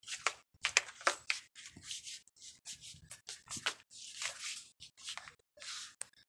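Rustling and handling noise: a quick run of short, irregular scratchy bursts, as of a phone and a crinkly package being handled in the hand.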